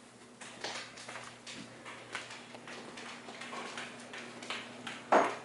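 Footsteps on a hardwood floor as a person walks slowly backward: soft taps about two or three a second, with one louder thump near the end.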